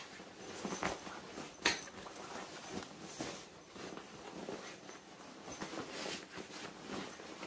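Fabric rustling and scraping as a Hest camp pillow is pulled out of its waterproof outer cover and unfolded by hand, with several short sharp knocks and clicks, the loudest about a second and a half in.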